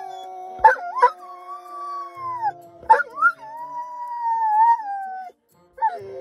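A dog howling in long wavering notes, with a man howling along with it. Several howls follow one another, with brief yelping breaks between them, then stop for a moment before a new howl starts near the end.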